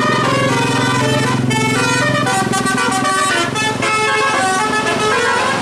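Bus telolet musical air horn playing a quick melody of changing notes, over a low steady drone that drops away a little past halfway.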